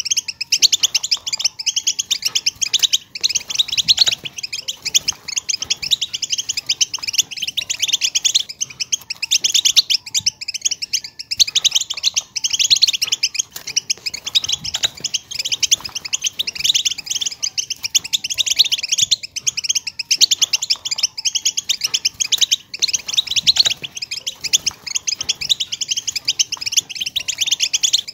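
European goldfinches twittering, a dense, unbroken stream of quick chirps and liquid trills. This is the goldfinch call sound used as a lure for trapping goldfinches.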